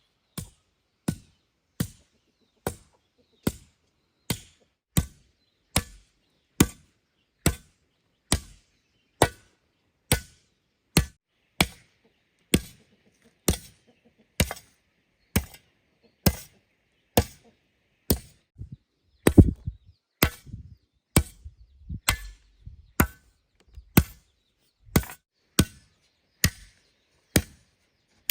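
A hand tool striking over and over in a steady rhythm, a little more than one blow a second, with a short run of quicker, heavier knocks just past the middle.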